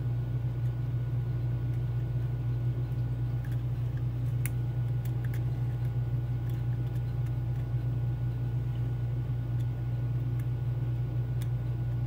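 A steady low hum, with a few faint, scattered clicks of a pick and tension wrench working the pins of a Mul-T-Lock Junior cylinder.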